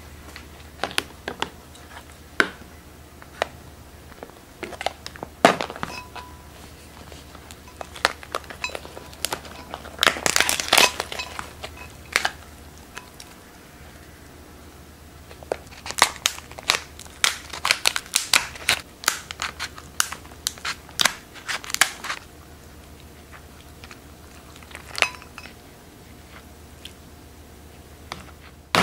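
Cooked lobster shell being cracked and pulled apart by hand: irregular crunches, snaps and crackles of breaking shell. They come in clusters, busiest about ten seconds in and again between about sixteen and twenty-two seconds.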